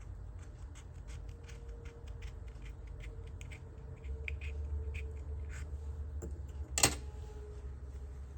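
Small scissors cutting into the leathery shell of a ball python egg: a run of light clicks and scratches, with one sharper snap about seven seconds in, over a low steady hum.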